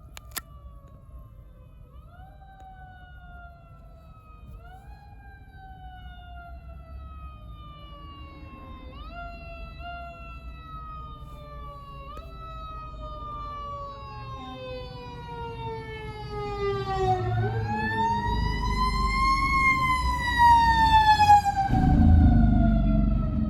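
Emergency vehicle siren wailing, its pitch rising quickly and sliding slowly down again every couple of seconds, then one long rise and fall. It grows much louder near the end with a low vehicle rumble underneath as the vehicle comes close.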